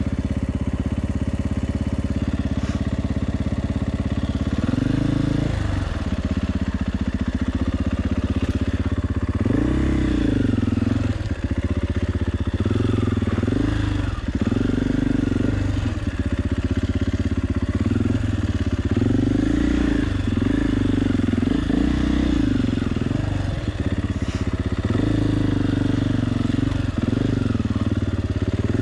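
Single-cylinder four-stroke engine of a KTM 450 EXC enduro motorcycle under way. It holds a steady note for about five seconds, then revs up and drops back over and over, every second or two, as the throttle is opened and shut.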